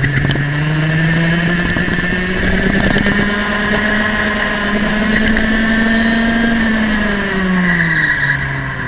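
Small single-cylinder two-stroke kart engine heard from on board, revving up steadily through the gears-less climb of a straight as the kart accelerates, then its pitch drops about seven seconds in as the driver lifts off the throttle for the next corner.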